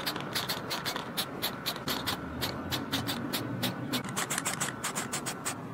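Diton aerosol spray-paint can in use: a quick, irregular run of short sharp sounds, several a second.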